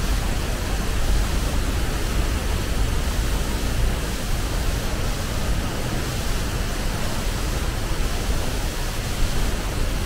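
Steady, unbroken rush of a tall waterfall pouring into its plunge pool.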